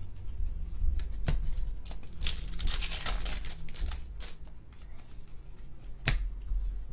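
Trading cards being flipped through by hand: glossy card stock rustling and sliding against itself, with a few sharp snaps as cards are pulled from the stack.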